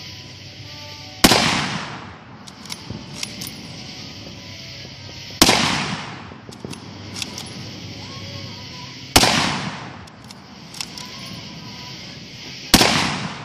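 Four rifle shots from a Type 53 bolt-action carbine (7.62×54mmR Mosin-Nagant M44 copy), about four seconds apart, each trailing off over about a second, with small clicks between them.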